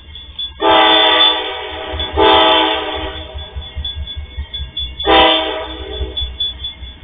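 An MRS Logística freight locomotive's air horn sounds three blasts as it approaches a level crossing: two nearly back to back, then a third about two and a half seconds later.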